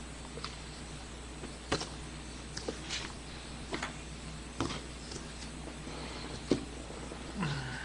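Pen scratching on paper in short, irregularly spaced strokes as a manga drawing is inked by hand, over a steady low hum. A short low falling sound comes near the end.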